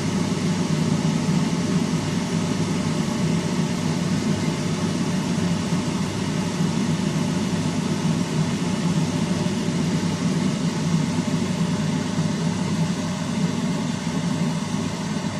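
Steady low hum and whir of a running fan motor, unchanging throughout.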